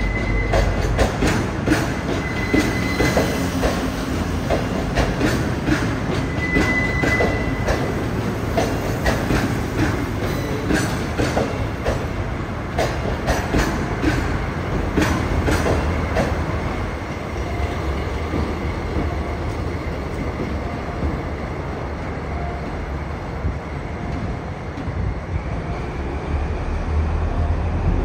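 Train of new subway cars riding on temporary bogies rolling past, the wheels knocking and clattering over rail joints and points, with a few short wheel squeals in the first several seconds. In the second half the clatter eases and the diesel locomotive pushing the train passes with its engine running.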